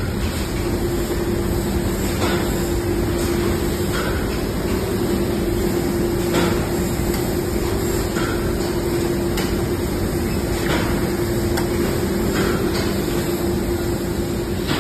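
Steady din of running textile-mill machinery, winding frames and packing conveyors: a constant hum under a loud noisy wash, with scattered light clicks.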